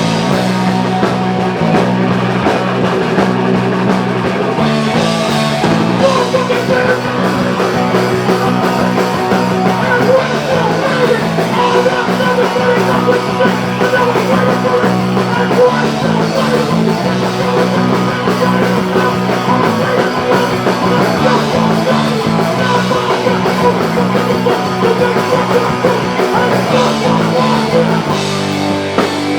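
Live punk rock band playing a cover song at full volume, with electric guitars, bass and drums.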